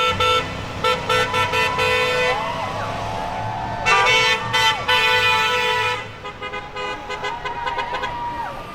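Car horns honking in repeated short and longer blasts, loudest in the first two seconds and again from about four to six seconds in, then weaker toots near the end.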